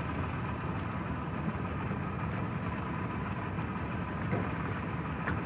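Small boat's engine running steadily, with a low, even hum.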